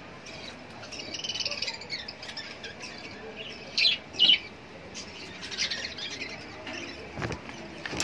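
A flock of budgerigars chattering and chirping, with two loud, sharp squawks about halfway through.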